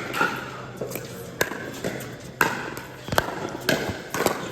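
A pickleball rally: paddles hitting the plastic ball back and forth, making sharp hits about a second apart that come faster, about two a second, near the end.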